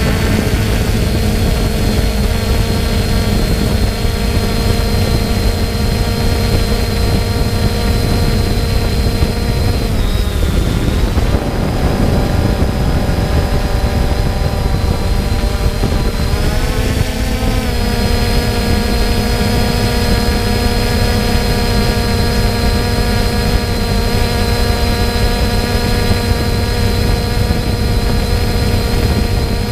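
Quadcopter drone's electric motors and propellers, heard from its onboard camera: a steady multi-tone whine over a low rushing noise. The pitch dips briefly about ten seconds in and swings up and back about seventeen seconds in as the throttle changes.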